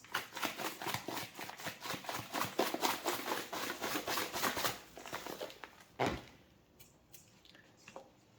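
Lemon pepper seasoning being shaken from a shaker, a rapid rattle of several shakes a second for about five seconds, followed by a single knock about six seconds in.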